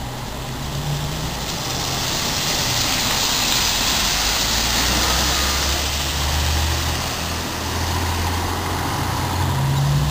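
MAN GN03 articulated diesel city bus pulling away from the stop and driving past, its engine droning low. Tyre hiss on the wet road swells to a peak about four seconds in, then fades as the bus draws away.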